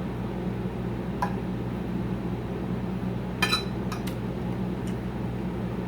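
A fork clinking against a plate a few times, the loudest clinks about three and a half seconds in, over a steady low hum.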